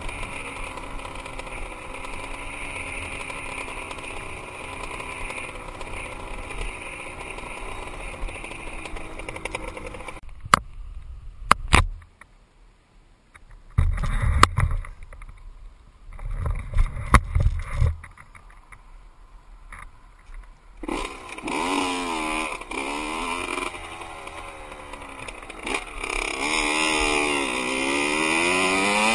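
Dirt bike engine running as it is ridden, its pitch rising and falling with the throttle. About ten seconds in the engine sound drops away for several seconds, leaving a few sharp clicks and loud low thumps. It then comes back, climbing in pitch as it revs up near the end.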